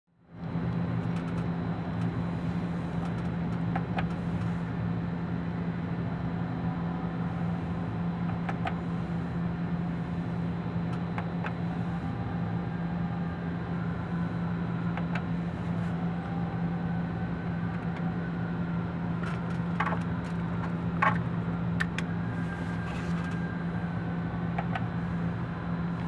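Steady low mechanical hum inside a Volvo truck cab, with a few faint clicks, the sharpest near the end.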